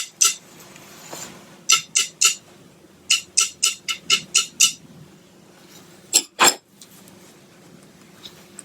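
Sharp rapping on a hard surface in quick groups: a few at first, three more, then seven quick raps. About two-thirds of the way through come two duller, fuller knocks.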